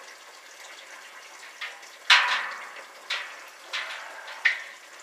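Sharp clanks and clinks of utensils against a metal brewing pot, five in about three seconds with the second the loudest, over faint running liquid.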